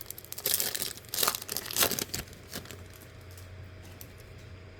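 Foil wrapper of a Topps Chrome trading-card pack crinkling as it is torn open, in a quick run of rustles over the first two seconds, then only a faint steady hum.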